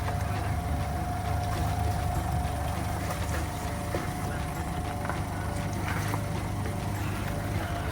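A vehicle's engine running steadily with a low rumble and a thin steady whine, with a few faint knocks.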